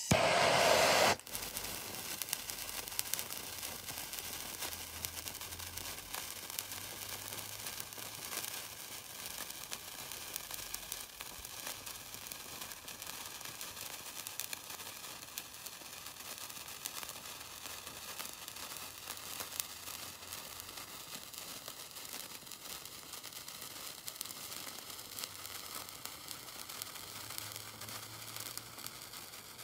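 Giant Legacy Sparkler by Standard Fireworks burning, giving a steady fizzing crackle of many tiny pops. A louder rush of noise fills about the first second.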